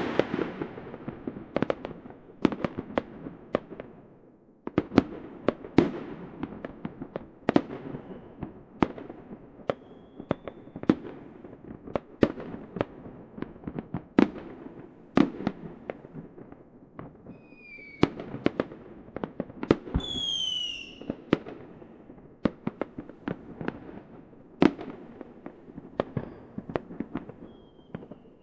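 Fireworks display: irregular sharp bangs of bursting aerial shells, each trailing off in a rumbling echo, with a loud bang at the start. A few whistling fireworks sound in between, the loudest a falling whistle about two-thirds of the way through.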